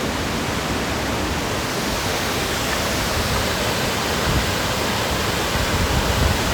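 Steady rush of falling water from a waterfall, with a few brief low rumbles in the last couple of seconds.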